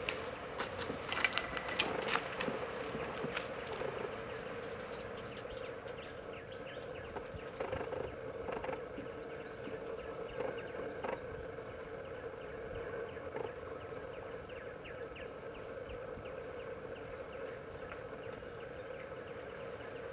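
A flurry of splashes and wing flaps fills the first few seconds as spot-billed pelicans run across the water to take off. After that a steady outdoor drone remains, with faint scattered high chirps.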